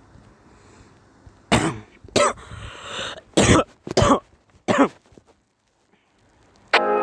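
A sick person coughing: a fit of about five harsh coughs over some three seconds, with a rasping stretch between the second and third. An electronic tone starts just before the end.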